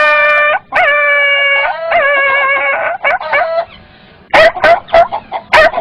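A boy's voice imitating a dog yelping and whining in pain after being hit with a stick: three long drawn-out cries, each sliding up at the start and dropping off at the end, then a few shorter cries and a run of short, sharp yelps in the second half.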